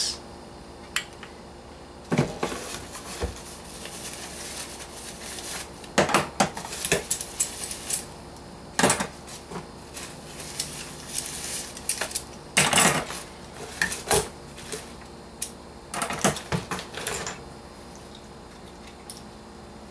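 Stainless-steel brewing fittings and valves clinking against each other while their packing paper and plastic wrap rustle, as they are dug out of a box: a string of irregular clinks and crinkles that dies down near the end.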